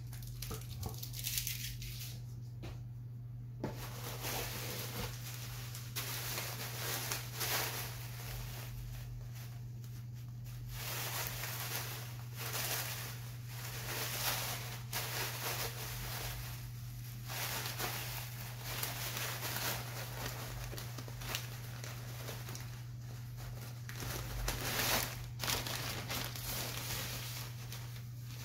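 Clear plastic bag of perlite crinkling and rustling in uneven stretches as it is handled and opened. A steady low hum runs underneath.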